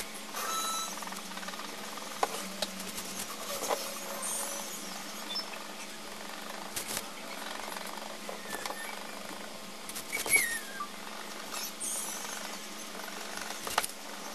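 Pencil scratching on paper in quick back-and-forth hatching strokes, shading in a circle, with occasional sharp ticks of the pencil against the sheet and a steady low hum underneath.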